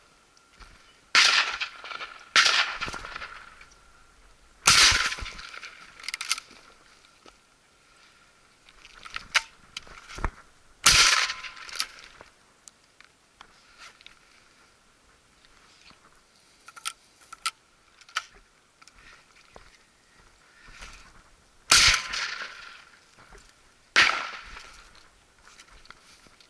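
About seven shotgun shots, some in pairs a second or two apart, each with a ringing tail of echo; the loudest come about 5 and 11 seconds in.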